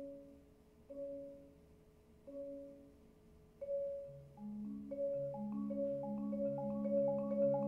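Solo 4.3-octave marimba: a few single notes, struck about a second apart and left to ring and fade, then from about four seconds in, rolled low notes with a quicker figure above, growing louder.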